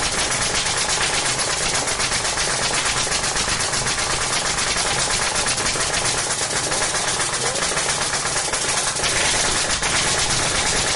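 A steady, rapid mechanical rattle, fine clicks in quick succession without a break, over a low hum.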